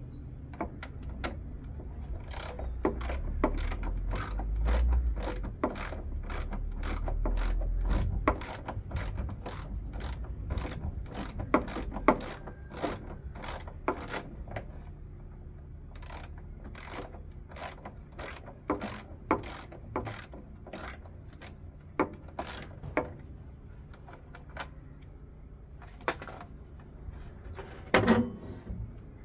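Hand tools working on a washing machine drum during disassembly: a long series of sharp ratcheting clicks, about three a second, thinning out in the second half. A low rumble runs under the clicks for the first eight seconds.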